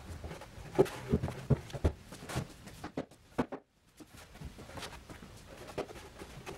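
Flat-pack workbench parts of 18 mm pine plywood knocking and bumping as the panels are handled and slotted together: a run of separate knocks and thuds, with a short silent gap about halfway through.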